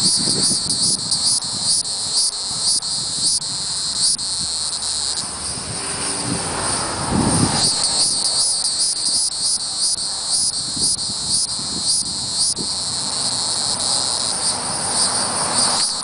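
Hieroglyphic cicada (Neocicada hieroglyphica hieroglyphica) calling: a continuous high-pitched buzz made of rapid pulses. It weakens for a couple of seconds in the middle, then comes back strong.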